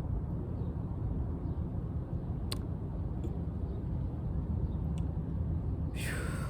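Steady low outdoor rumble, with two light clicks and a short rustle near the end.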